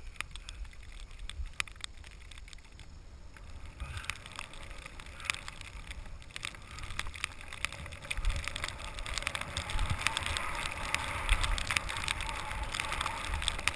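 Skis running through deep powder snow: a soft hiss of snow with many small crackles, quieter at first, then building about four seconds in and fuller toward the end.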